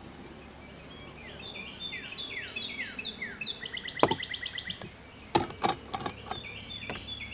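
A songbird singing: a run of quick down-slurred whistled notes ending in a fast even trill, starting again near the end. A sharp knock about four seconds in, the loudest sound, and a few more knocks a second or two later, from gear being handled.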